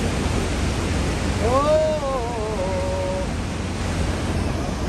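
Steady roar of the Niagara Falls water and spray with a deep rumble underneath, heard from the tour boat. About a second and a half in, a single short wavering call rises and then falls away.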